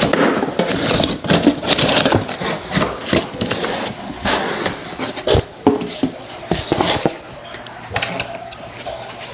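Irregular rustling, scraping and knocking as packaging and metal and plastic parts are handled.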